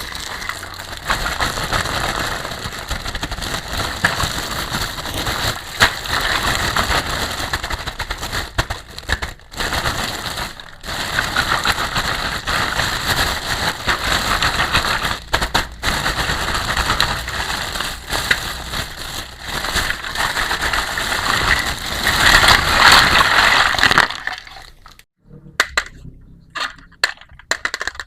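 Plastic packaging crinkling and crackling as it is handled and unwrapped, stopping about four seconds before the end and giving way to a few light clicks and taps.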